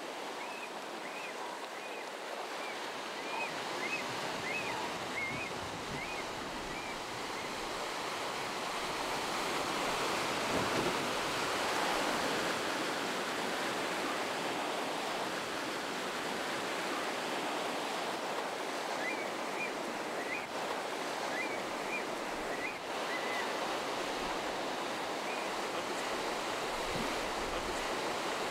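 Ocean surf washing and breaking over rocks, swelling louder toward the middle. Runs of short high chirps come through in the first few seconds and again about two-thirds of the way in.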